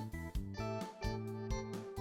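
Background music: an upbeat instrumental tune with plucked guitar-like notes over a steady beat.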